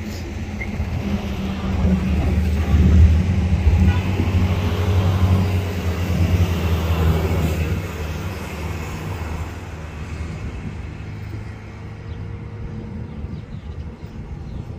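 A motor vehicle's engine running with a low, steady hum. It swells louder about two seconds in, holds for several seconds, then eases off.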